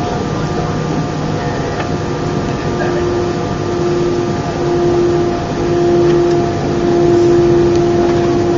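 Inside the cabin of an Airbus A319 jet airliner: a steady engine drone with a held whine that grows a little louder about three seconds in.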